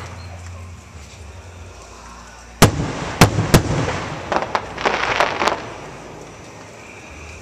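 Aerial firework shells bursting overhead: a sharp bang about two and a half seconds in, two more bangs within the next second, then a quick run of pops and crackle that fades away.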